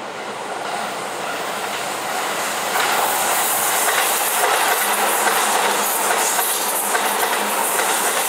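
Shin-Keisei 8900 series electric train approaching and passing close by, its wheels clacking over the rail joints. It grows louder over the first three seconds, then holds steady as the cars go by.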